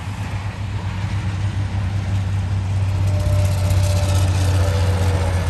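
Vehicle engine running with a steady low hum, growing louder about three seconds in.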